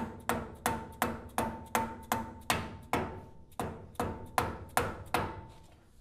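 A hammer striking a steel driver to tap a new kingpin down through a Ford Model A front spindle and axle. About fifteen quick blows, roughly three a second, each with a short metallic ring. The blows stop a little before the end.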